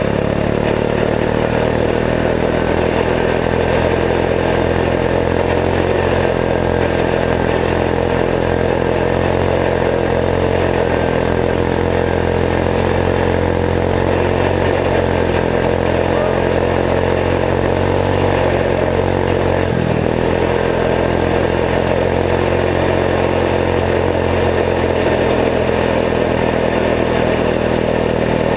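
Turbocharged 14 hp single-cylinder Kohler engine of a Gilson garden tractor running at a steady speed under way. Its pitch dips briefly about twenty seconds in.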